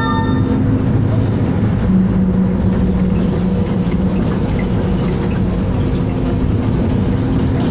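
City bus engine running and tyre and road noise heard from inside the moving bus: a steady drone whose engine note swells briefly about two seconds in.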